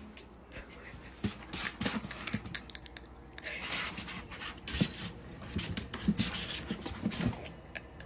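A kitten scrabbling about inside an empty plastic cat-litter jug: a run of scratches, taps and knocks on the plastic, the sharpest knock a little under five seconds in.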